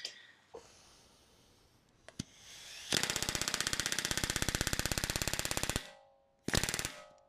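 Pneumatic rivet gun rapidly hammering an aluminium rivet home in an aircraft horizontal stabilizer: one steady burst of about three seconds, then a second short burst about half a second later.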